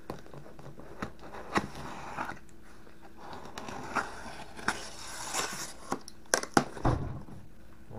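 Cardboard shipping box being handled, flaps rubbing and crackling with scattered sharp clicks as an arm reaches inside it. A cluster of knocks, with one low thump, comes near the end.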